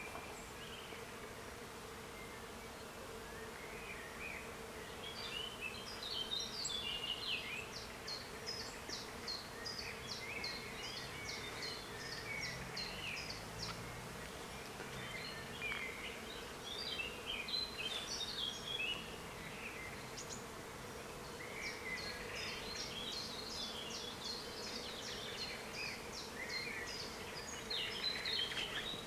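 Small birds singing in short, scattered phrases from the surrounding trees and bushes. Twice there is a run of rapid, even high ticks, and a faint steady hum runs underneath.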